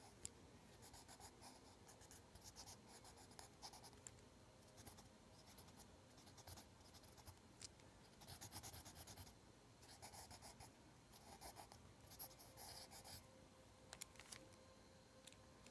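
Pencil graphite scratching on lined notebook paper in short, quick sketching strokes that come in clusters. The sound is faint.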